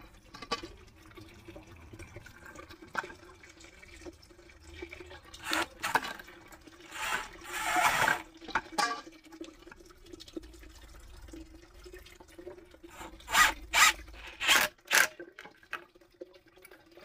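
Cordless drill-driver working screws into a plastic junction box: a short burst of about a second a little before the middle, then a quick run of sharp clicks and knocks in the second half, over a faint steady hum.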